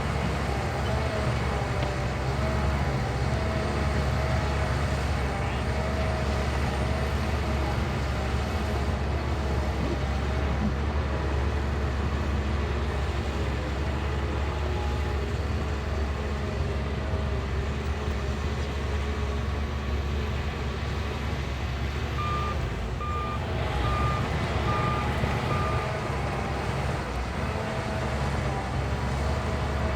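Shantui bulldozer's diesel engine running steadily. A reversing alarm beeps five times, evenly spaced, about three-quarters of the way through.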